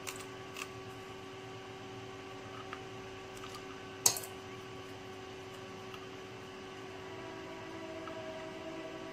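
Cutting pliers clicking against the metal contact points on an LED bulb's cap, with one sharp snap about four seconds in, as the contacts are broken to free the driver circuit board. A steady low hum runs underneath.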